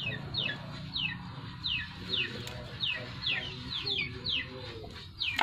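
Chicks peeping: a steady run of short, high, falling cheeps, two or three a second, with fainter lower clucking beneath.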